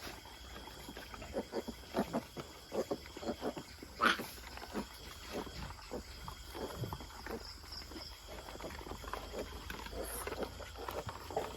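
Pigs grunting in a string of short, repeated grunts, with one louder, higher squeal about four seconds in.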